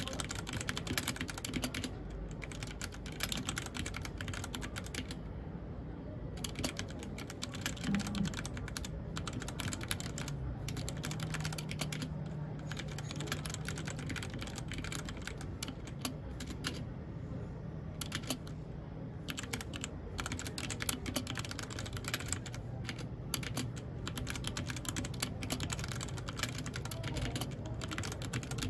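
Steady, fast typing on a mechanical keyboard: a dense run of key clicks that pauses briefly about five seconds in and again around seventeen seconds in.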